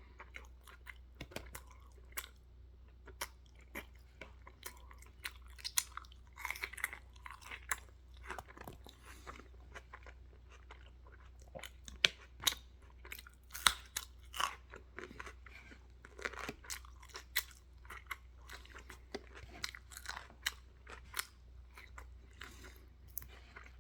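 A person chewing food loudly, with many sharp, irregular crunches and bites.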